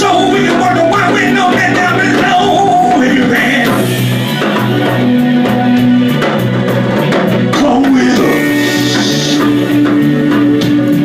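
Live band music with a singer: sung lines over guitar, bass and drums, with long held notes.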